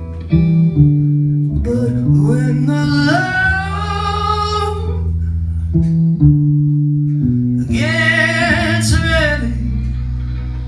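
Live music: a man singing while accompanying himself on guitar. There are two sung phrases, starting about two seconds in and about eight seconds in, over steady low guitar notes.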